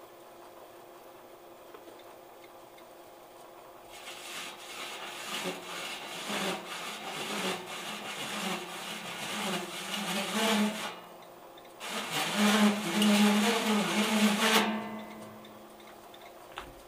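A large hole saw in a milling machine's spindle cutting into a sheet-metal enclosure at low speed, a rough grinding and scraping with crackles, in two spells starting about four seconds in and about twelve seconds in. The second spell cuts off suddenly, leaving the panel ringing briefly.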